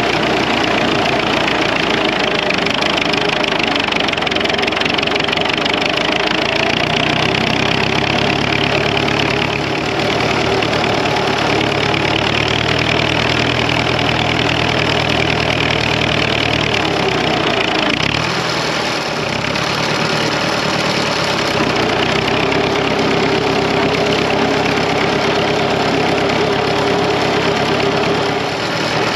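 Fordson Major tractor engine running steadily as the tractor drives through snow, its note briefly changing about two-thirds of the way through.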